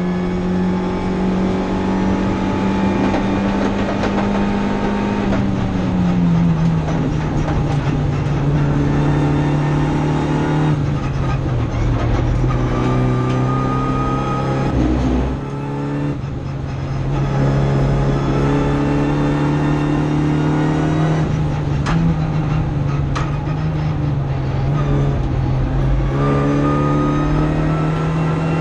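Renault Clio Cup race car's 1.3-litre turbo four-cylinder engine, heard from inside the cockpit, pulling hard under racing acceleration. The revs climb and then drop at each gear change, about five times, with a short lift off the throttle about halfway through.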